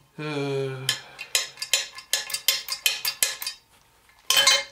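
Quick light metal-on-metal tapping, about five or six strikes a second for two and a half seconds, as a gear is worked onto the South Bend Heavy 10 lathe's gearbox shaft, where it sticks and will not slide up. A short low hum comes before the taps, and a single louder clank comes near the end.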